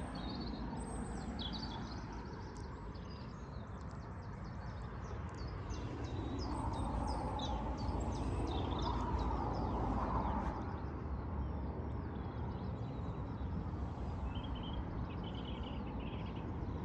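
Small birds chirping and twittering over a steady low rumble that swells about halfway through and then eases back.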